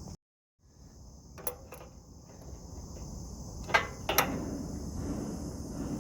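Steady high chirring of insects, with a few sharp knocks and clicks, the loudest two close together about four seconds in.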